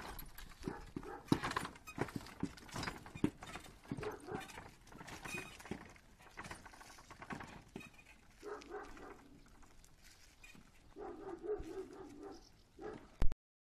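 Horse's hooves clip-clopping irregularly on a paved road as it pulls a wooden cart. Two short stretches of a pitched sound come in around nine and eleven seconds. The sound ends in a sharp click and cuts off abruptly.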